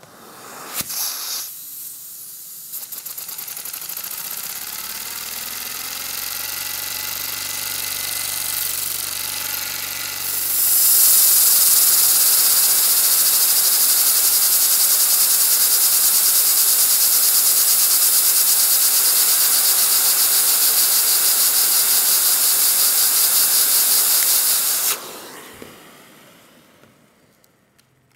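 Vacuum cleaner motor starting up, its whine rising in pitch. About ten seconds in it turns into a loud, steady rush of air, with suction drawn through the metal wand to drive a Lego vacuum engine. About three seconds before the end the motor stops and winds down.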